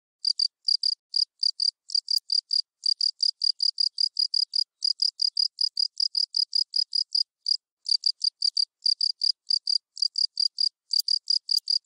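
Insect chirping in quick, even pulses, about four or five a second, high-pitched, with a few brief gaps in the rhythm.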